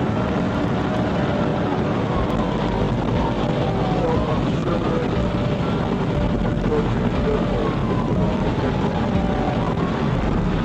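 Police car siren wailing in slow rising and falling sweeps over the steady rush of the cruiser's engine and road noise.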